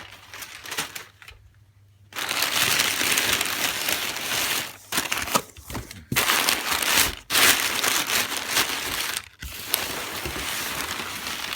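Packing material being crumpled and rustled while a shipping box is unpacked, loud from about two seconds in, with several brief pauses.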